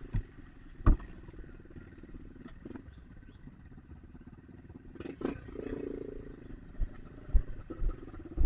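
Trail motorcycle engine running at low revs, swelling briefly about midway, with several sharp knocks and thumps.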